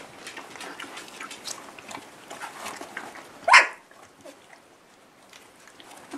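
A whippet gives one short, loud bark about three and a half seconds in, over scattered small clicks and rustling.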